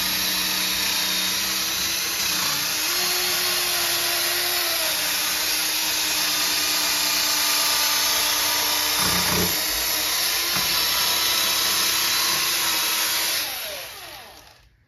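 Cordless drill spinning a foam buffing pad with polishing compound against a plastic headlight lens, running steadily at speed, then winding down and stopping near the end. This is the compound-polishing stage of restoring an oxidized headlight.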